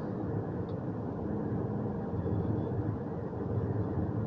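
Steady road and engine noise inside a car's cabin while it cruises at an even speed.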